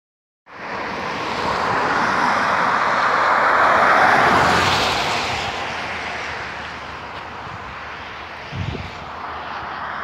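A car passing on a wet road: its tyre hiss on the wet pavement swells to its loudest about four seconds in, then fades away. A brief low thump near the end.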